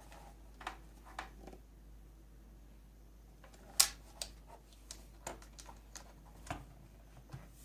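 Typing on a Leopold FC660C keyboard with Topre electrostatic capacitive switches: scattered, irregular keystrokes, about a dozen, with one much louder sharp click a little before halfway.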